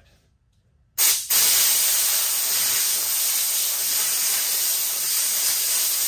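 Compressed-air blow gun on a hose: a short blast about a second in, then a loud, steady hiss of air. The air is blown into the joystick's auxiliary button to clear out water suspected of causing a bad contact.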